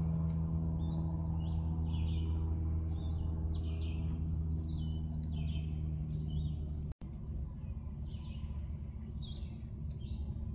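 Songbirds chirping and singing in a busy string of short, varied notes over a steady low hum. The sound drops out for an instant about seven seconds in, and the hum is fainter after it.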